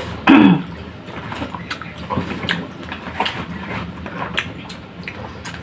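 Close-miked eating sounds of pork sinigang being eaten by hand: irregular wet chewing and lip smacks. One louder, brief falling-pitched sound comes about half a second in.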